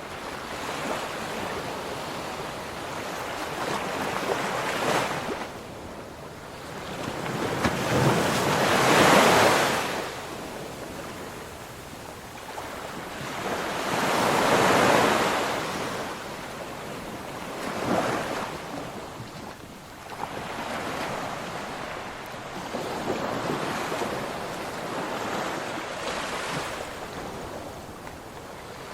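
Ocean waves breaking and washing on the shore, swelling and ebbing every few seconds, with the biggest waves about nine and fifteen seconds in.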